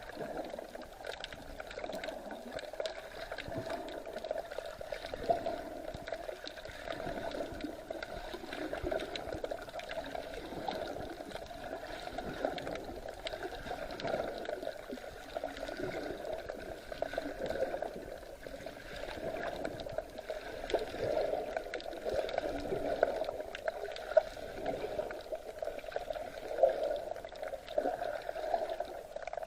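Sea water sloshing and splashing unevenly, with a few sharper splashes now and then.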